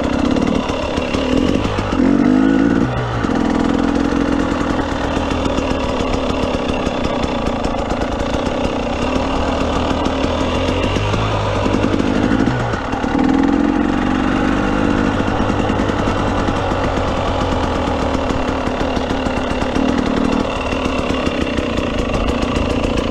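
KTM 300 EXC TPI single-cylinder two-stroke dirt bike engine running under way, its note rising and falling with the throttle and revving up about two, twelve and twenty seconds in.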